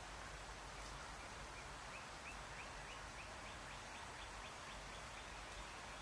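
A small bird calling faintly in a rapid series of short high chirps, about four a second, for a few seconds, over steady outdoor background hiss.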